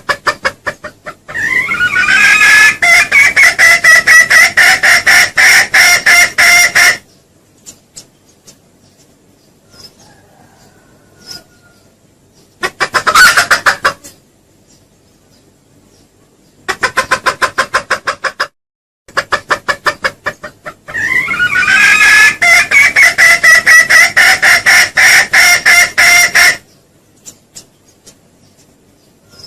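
Junglefowl lure call: two long runs of rapid, loud clucking pulses on a steady pitch, each about five seconds, with two shorter bursts of quick clucks between them.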